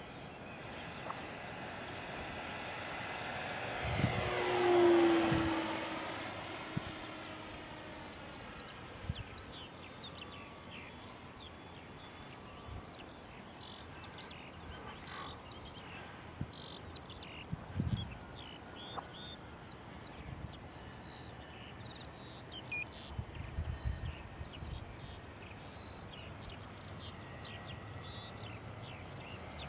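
Electric RC Corsair model's motor and three-blade propeller whining as it makes a close pass about four to six seconds in, the pitch falling as it goes by, then fading into the distance. Birds chirp and sing through the rest.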